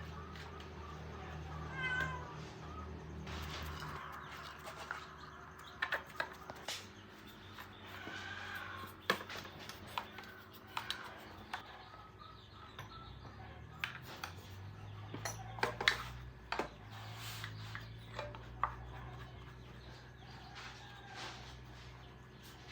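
A cat meowing, with a clear call about two seconds in and a fainter one later, among scattered sharp clicks and knocks.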